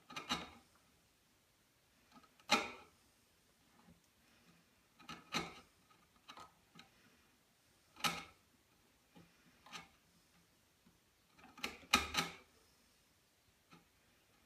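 Cranked paring chisel paring thin cuts from a hinge socket in a wooden box side by hand: short, sharp scraping strokes every second or two, with three in quick succession near the end.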